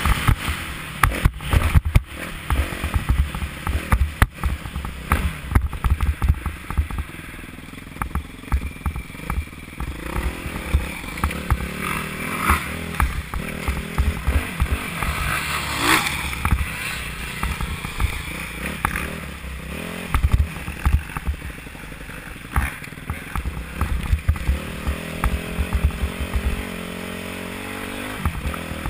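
Motocross bike engine heard from the rider's helmet, revving up and down as it is ridden around a dirt track, with frequent sharp knocks and clatter from the bumps.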